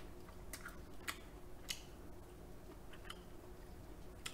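About half a dozen faint, scattered clicks and taps as a cooked king crab leg's shell is handled with gloved hands and the meat is pulled out of it.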